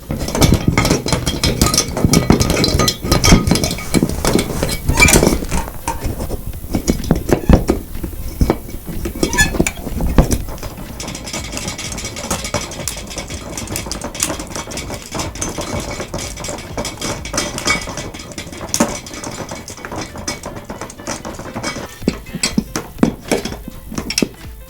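Foley sound effects: a dense, irregular run of clattering and clinking hits, like dishes and cutlery, louder and busier in the first ten seconds or so.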